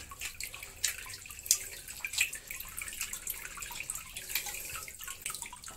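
Whey trickling and dripping in irregular drips from a perforated plastic cheese basket into the pot below, as fresh curd is pressed down into the basket by hand to squeeze out the liquid.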